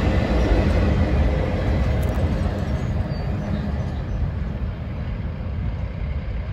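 The tail end of a freight train rolling past on jointed rail and fading away: a steady rumble of steel wheels on track that slowly gets quieter as the last boxcar recedes.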